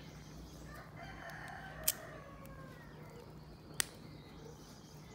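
A rooster crowing once, one long call that sinks slowly in pitch, with two sharp clicks about two seconds apart.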